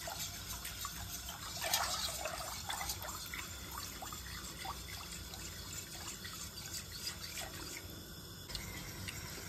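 Coil whisk stirring a thin milk-and-cocoa pudding mixture in a stainless steel pot: liquid sloshing and swirling, with many light ticks.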